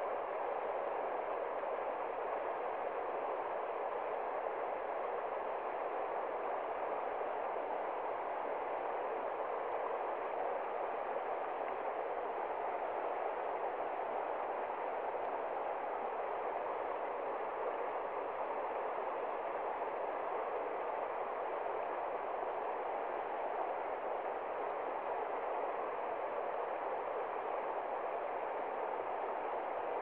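Shallow mountain river rushing over rocks and rapids, a steady, unbroken rush of water.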